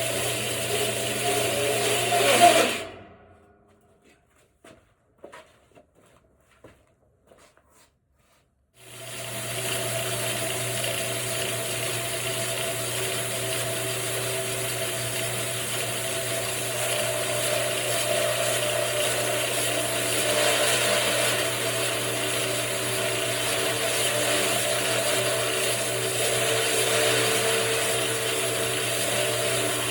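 Electric motor of a homemade bandsaw mill running steadily with a hum and whine. It dies away about three seconds in, leaving a few faint clicks, and comes back up about nine seconds in.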